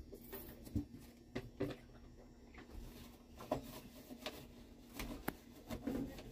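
Faint scattered clicks and knocks of plastic being handled as a refrigerator's door and door shelves are wiped out by hand, over a faint steady hum.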